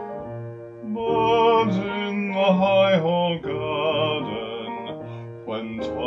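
English art song for voice and piano: piano accompaniment, then a classically trained voice enters about a second in and sings with vibrato.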